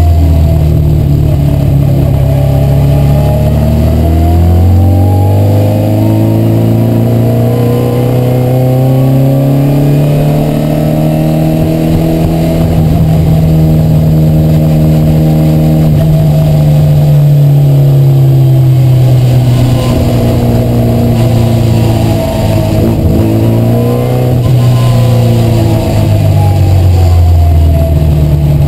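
Mini Cooper's BMC A-series four-cylinder engine heard from inside the race car's cabin, pulling hard under racing load. The revs climb over the first dozen seconds, hold high, ease and pick up again, then fall near the end as the car slows for a corner.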